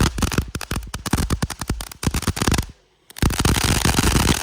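Fireworks going off in a rapid, dense string of crackling pops, like a machine gun, broken by a brief gap about three seconds in.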